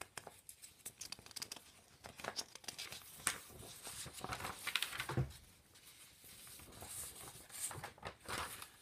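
Magazine pages rustling and crinkling as they are handled and a page is turned: a string of soft crackles and rustles.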